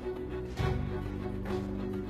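Background music from the drama's score: sustained held notes over a low bass.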